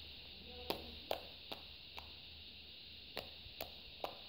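Hands kneading fluffy shaving-cream slime: a string of short, sharp smacks at uneven spacing, about seven in all, over a steady background hiss.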